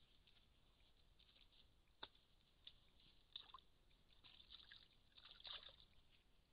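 Near silence with faint, scattered ticks and rustles, and a few sharper clicks about two and three and a half seconds in, then a denser patch of rustling near the end.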